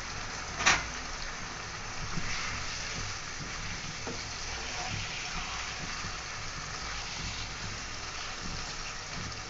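Beef pieces frying in oil in a pan with chili powder, a steady sizzle while a spatula stirs them. There is a sharp knock about a second in.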